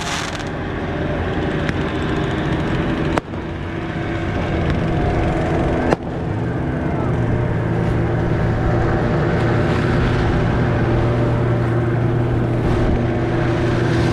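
Boat engine running steadily under way, with two abrupt breaks about three and six seconds in.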